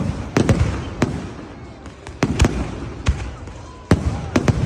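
Fireworks going off: about eight sharp bangs at irregular intervals, some in quick pairs, each trailing a low rumbling echo.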